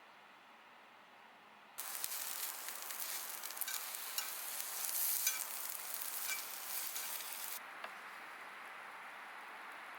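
Food sizzling in a hot pan. The sizzle starts suddenly about two seconds in, with spitting crackles, then settles to a quieter sizzle about eight seconds in.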